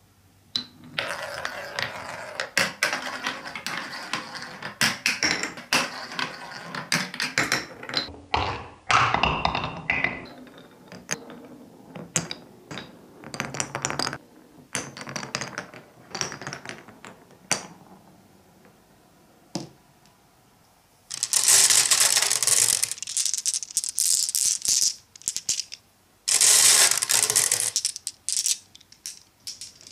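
Glass marbles rolling and clacking down wooden marble-run tracks: a dense stream of clicks and rolling for the first ten seconds, then scattered single knocks. Near the end come two loud bursts of glass marbles clattering together in a glass jar.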